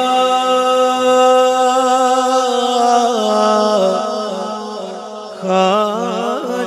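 A singer's long held opening note, the drawn-out sung introduction to a devotional manqabat, holding steady, stepping down in pitch about three seconds in, and wavering through a quick ornament near the end.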